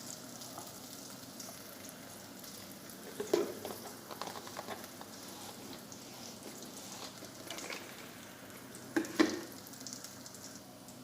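Mustard seeds, green chillies and dried red chillies frying in hot coconut oil, sizzling steadily with scattered small crackles as the mustard seeds pop. Two louder knocks come about three seconds in and again near nine seconds.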